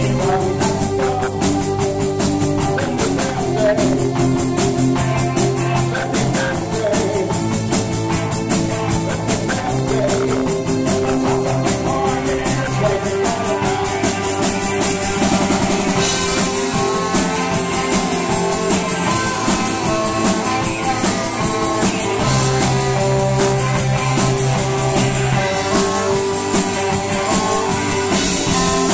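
Live post-punk band playing loudly: electric guitar, bass and drum kit, with a man singing into the microphone. The cymbals grow brighter about halfway through, and a saxophone is playing near the end.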